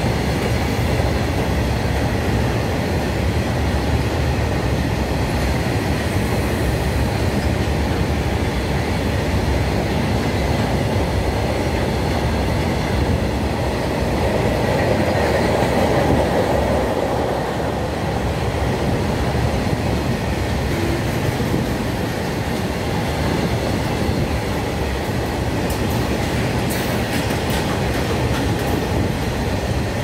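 Loaded BOXN open freight wagons of a goods train rolling past at speed: a steady rumble with a dense clatter of wheels on the rails, swelling slightly about halfway through.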